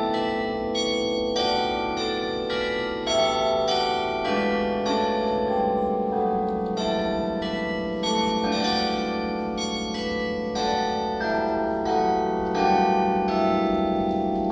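Church bells ringing, several bells of different pitch struck in turn about twice a second, their tones overlapping and ringing on.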